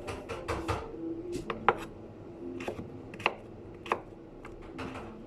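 Kitchen knife cutting on a cutting board: a dozen or so irregular strokes, with a few sharper knocks near the middle.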